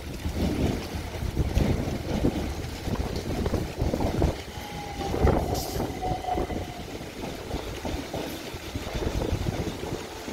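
A Southern Class 377 Electrostar electric multiple unit arrives into the platform, its wheels rumbling over the rails and pointwork. A brief thin whine comes about halfway through.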